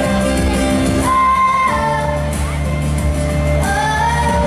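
Pop song performed live: a voice singing long held notes over steady instrumental accompaniment with a strong bass.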